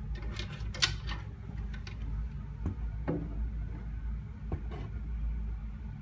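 Handling noise from a phone being carried and turned by hand: a steady low rumble with a few scrapes and clicks, the sharpest about a second in and a few more later.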